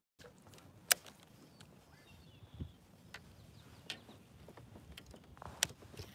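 Faint background hiss with a few sharp knocks, the loudest about a second in and another near the end.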